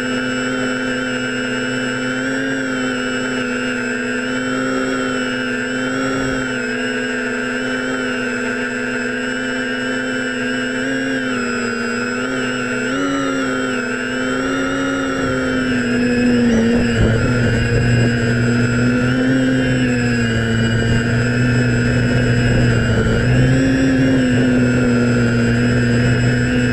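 Six brushless motors and propellers of a DJI F550 Flamewheel hexacopter, heard from the onboard GoPro, buzzing steadily in flight with a pitch that wavers slightly as the motors adjust. About sixteen seconds in it gets louder, with more low rumble underneath.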